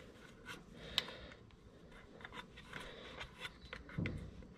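Faint handling noises of a brass barb fitting and rubber hose: scattered light clicks and rustles, one sharp click about a second in and a soft low thump near the end.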